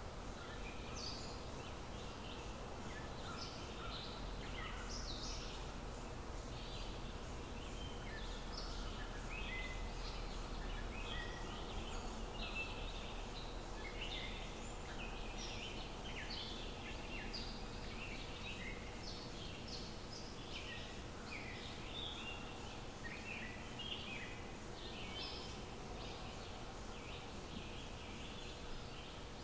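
Several birds chirping and singing in quick, short calls throughout, over a steady low hum.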